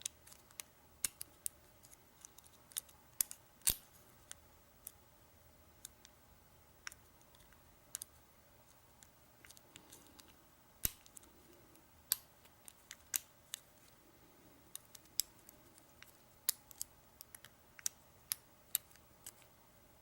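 Faint, irregular metallic clicks and taps of a lock pick and tension wrench working the pin stack of an American 1100 padlock, one or two sharp ticks every second or so.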